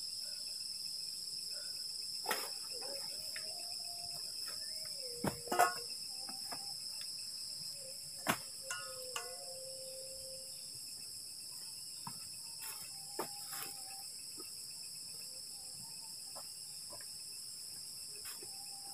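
Steady high-pitched trilling of crickets and other night insects. A few sharp knocks or snaps break through it, the loudest about five and a half seconds in and another near eight seconds.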